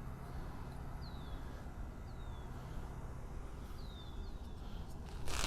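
A small bird chirping, with short downward-sliding calls four or five times, over a steady low background rumble. A brief loud noise sounds near the end.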